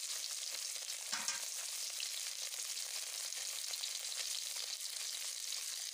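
Taki (spotted snakehead) fish pieces frying in hot oil in a blackened iron karahi: a steady sizzle, with one brief louder noise about a second in.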